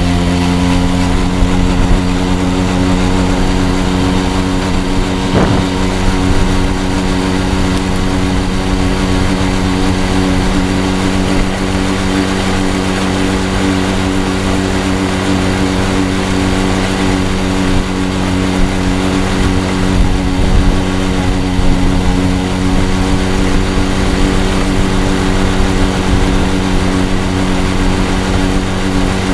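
Sachs Saxonette two-stroke auxiliary engine running steadily at full throttle, its pitch climbing briefly at the start and then holding. At full load it makes odd noises that its owner cannot account for.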